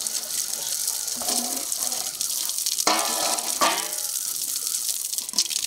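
Water running from an outdoor tap and splashing off steel dishes onto a concrete slab as they are rinsed, a steady hiss. Two brief louder sounds stand out about three and three and a half seconds in.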